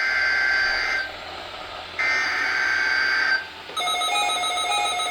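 Weather radio broadcast of a NOAA Weather Radio SAME header: two screeching digital data bursts, about a second each with a short pause between, marking the start of a Required Weekly Test. Near the end several weather radio receivers set off electronic alert tones together, a jumble of beeps.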